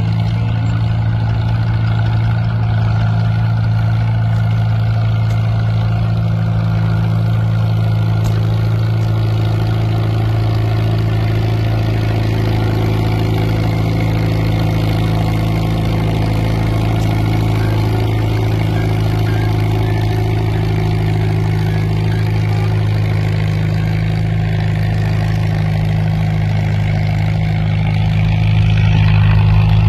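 Engine idling steadily with a low, even hum that grows a little louder near the end.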